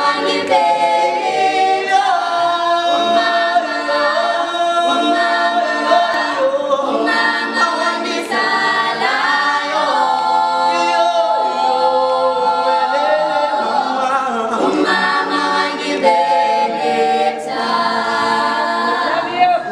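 A small group of six teenage voices, girls and boys, singing a cappella in harmony, with several sung parts held at once and no instruments.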